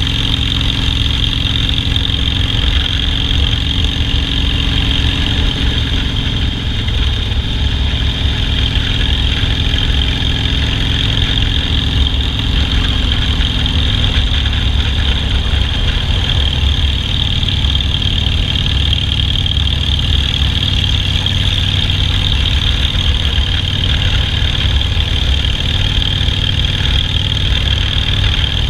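Harley-Davidson Softail Standard V-twin engine idling steadily, with a loud, even low pulse.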